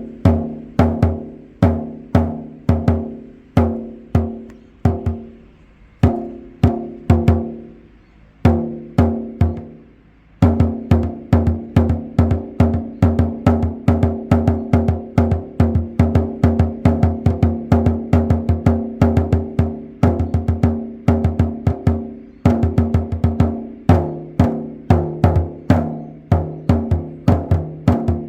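A hand drum beaten in a steady, fast rhythm, each stroke ringing with a deep pitched boom. The beating thins out with short pauses about five and nine seconds in, then picks up again, denser.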